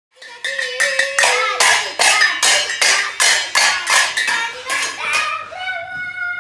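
Metal pot lids banged with a spoon like cymbals: a fast run of ringing clangs, about five a second, that stops about five seconds in. Held steady notes follow near the end.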